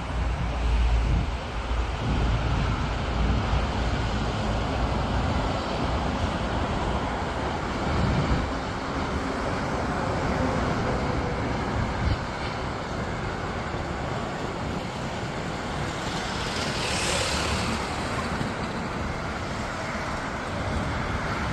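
Jet engines of an Airbus A321neo airliner on final approach, a steady roar with a faint falling tone partway through and a brief brighter hiss about sixteen seconds in. Wind buffets the microphone in the first couple of seconds.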